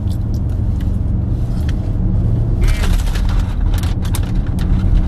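Steady low rumble of a car heard from inside the cabin, with a few short clicks and rustles past the middle.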